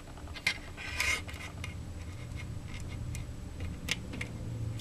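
Small clicks, ticks and scratches of a tiny screw and plastic RC-helicopter rotor-blade parts being handled and worked together by hand, with a short scrape about a second in.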